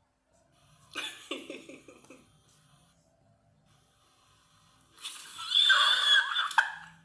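Woman laughing: a short run of quick breathy "ha-ha" pulses about a second in, then a loud, high-pitched, wavering squeal of laughter about five seconds in that lasts a second and a half.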